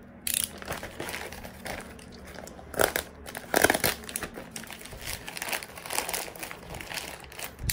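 Plastic poly mailer bag crinkling and rustling as it is handled and pulled open by hand, with irregular crackles that are loudest about three to four seconds in.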